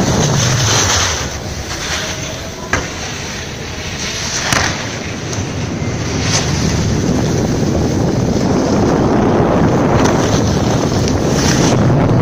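Rushing air buffeting the microphone of a camera sliding down a snow slope, mixed with the hiss and scrape of edges on the snow. It eases off for a few seconds near the start, with two brief knocks about three and four and a half seconds in.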